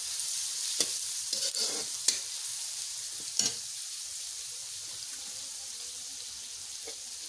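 Sliced onions and whole spices sizzling in hot oil in a metal kadai, a steady high hiss. A spatula stirs and scrapes against the pan, giving a few sharp clicks in the first half.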